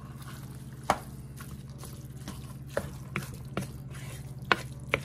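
Wooden spoon stirring a thick rice and ground-turkey filling in a metal pot, with about six sharp knocks of the spoon against the pot at uneven intervals. A steady low hum runs underneath.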